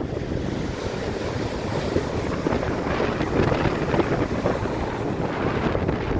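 Strong, sustained wind of 40-50 mph buffeting the microphone with a steady low rumble, over the roar of heavy surf breaking on the Lake Michigan shore.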